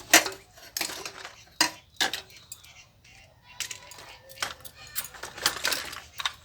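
Toys clattering and knocking against each other as they are rummaged through in a basin: a run of irregular sharp knocks, the loudest one just after the start.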